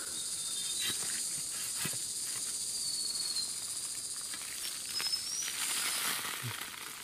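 Steady high-pitched buzz of insects in the forest, with two brief faint whistling chirps, over soft crackles of dry leaves and loose soil being scooped and handled by hand.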